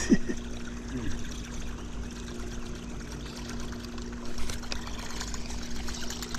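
Water trickling and lapping around a jon boat, with a steady low hum running underneath.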